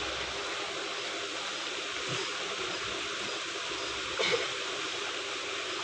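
Steady rush of running water, as from a stream or water pouring into a pond, with one brief faint sound about four seconds in.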